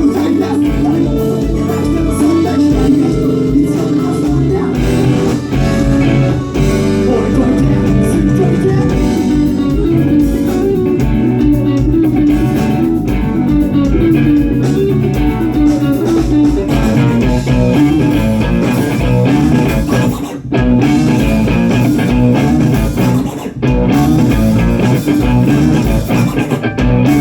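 Live band music in an instrumental passage, led by guitar with bass guitar underneath, with two short breaks about 20 and 23 seconds in.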